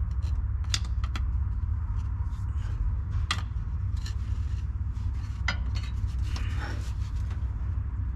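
A flat-blade screwdriver prying at an automatic transmission pan: a few sharp metallic clicks and a short scrape, with the pan not yet coming free. A steady low hum runs underneath.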